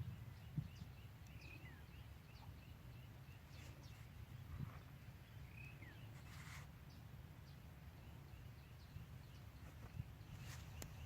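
Faint wild bird calls: a run of short high notes, about four a second, twice over, with a few separate gliding chirps, over a low outdoor rumble.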